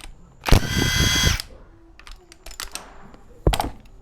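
Cordless drill-driver whirring for about a second as it spins a bolt on the engine's side cover, followed by light metallic clicks and one sharp clink near the end.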